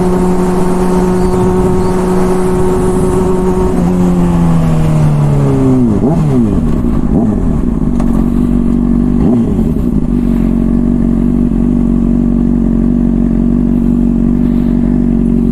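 Honda CBR600RR inline-four running through an aftermarket Toce exhaust: held at steady revs, then the revs drop away, with a couple of short throttle blips, before settling to a steady idle.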